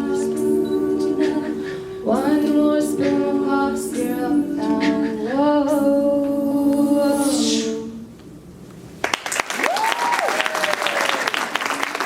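An a cappella vocal group sings its closing chords, voices held in sustained harmony until they stop about eight seconds in. About a second later the audience starts applauding, with one voice cheering a rising-and-falling "woo".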